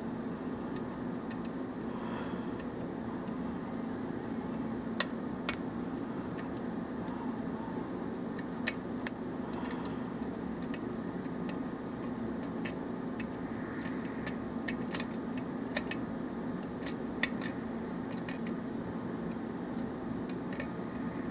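A lock pick and tension wrench working the pins of a Russwin lock cylinder during single-pin picking: scattered light metallic clicks and ticks, a few sharper ones, over a steady background hum.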